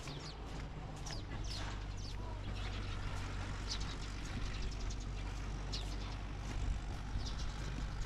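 Birds calling with short falling chirps every second or two over a steady low hum.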